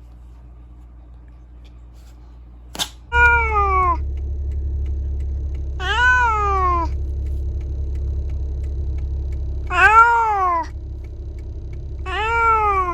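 A domestic cat meowing four times, each call about a second long and rising then falling in pitch, over a steady low rumble that starts with the first meow. A sharp click comes just before the first call.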